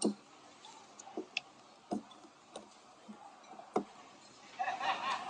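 Chopsticks and tableware clicking against ceramic plates and bowls: a series of short, sharp clicks spaced irregularly, the loudest right at the start. A voice sounds briefly near the end.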